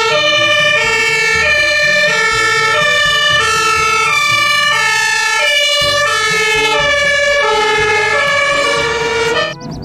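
German fire engine's two-tone siren (Martinshorn) switching between a high and a low note about every half second, with the truck's engine rumbling underneath. It cuts off just before the end.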